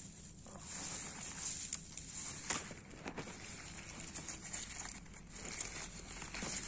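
Leaves, grass and plant stems rustling and crackling as a hand pushes through them right against the phone's microphone, with a few sharper snaps near the middle.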